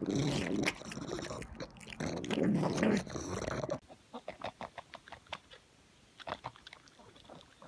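A pug chewing food close to the microphone: loud, dense chewing of broccoli for the first few seconds. After a sudden cut, a quieter run of short clicking chewing sounds as a pug eats noodles from a hand.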